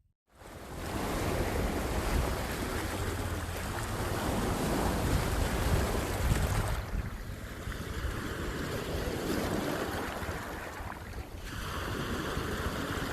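Wind buffeting the microphone outdoors: a steady rushing noise with a heavy low rumble, changing character abruptly twice, about 7 and 11.5 seconds in.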